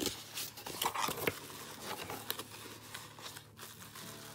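A small cardboard box being opened and handled by hand, with flaps rustling and bubble-wrap packaging crinkling, plus a few light taps and scrapes.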